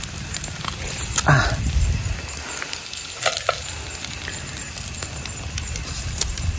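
Wood campfire crackling and hissing, with clicks and scrapes of sticks moving cooked whole fish in the embers.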